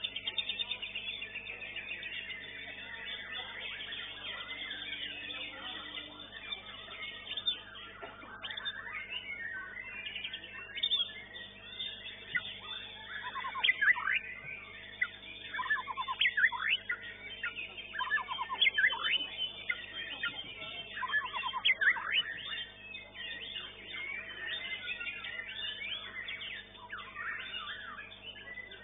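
White-rumped shama (murai batu) singing: varied whistled notes, sweeps and rapid trills, with the loudest phrases coming between about 13 and 22 seconds in, over a faint steady hum.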